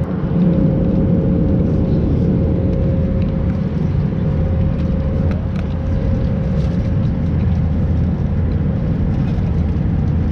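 Airbus A320 cabin noise in cruise: a steady low rush of engine and airflow with a constant hum running through it.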